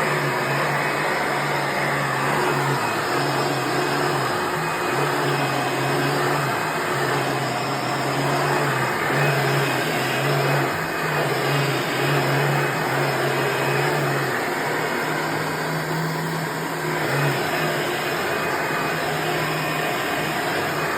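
1996 Hoover Preferred soft-bag upright vacuum cleaner running on a rug: a steady whoosh of air with a low motor hum that steps between two pitches every second or so.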